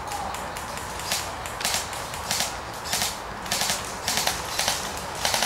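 Airsoft guns firing irregular single shots, sharp cracks about one or two a second.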